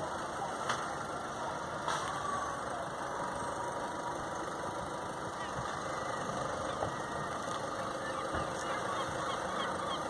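A vehicle engine idling steadily, with a few faint clicks and short faint bird chirps in the second half.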